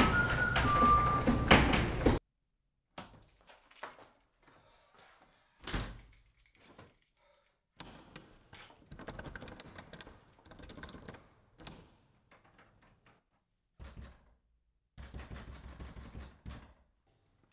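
Music with a whistled melody cuts off abruptly about two seconds in. Then come scattered door and handling sounds in a small room: knocks, a single louder thunk, clicks and rustling, with near-silent gaps between them.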